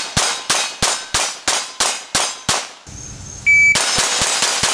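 A GSG 1911 .22 LR pistol fired in a rapid string, about three shots a second, with steel targets clanging as they are hit. After a short pause comes a brief high beep, then another quicker string of shots.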